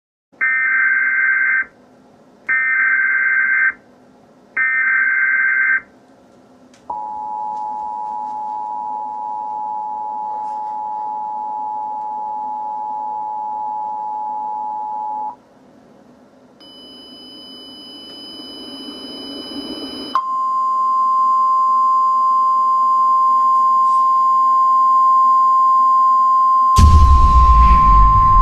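US Emergency Alert System tornado alert: three short buzzing bursts of the digital data header, then the two-tone attention signal held steady for about eight seconds. After a swelling hiss with high whistling tones, a single steady Weather Radio alarm tone sounds, and a loud low rumble breaks in near the end.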